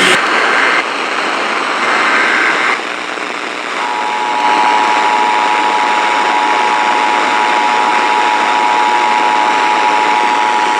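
Emergency Alert System broadcast heard over heavy radio static. Two brief bursts of SAME header data tones come in the first few seconds. From about four seconds in, the steady two-tone EAS attention signal (853 and 960 Hz) sounds continuously, announcing a tornado warning.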